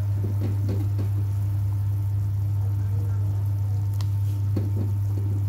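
Clay pot of minced-pork soup simmering, with soft bubbling under a steady low electrical hum. A light click comes about four seconds in.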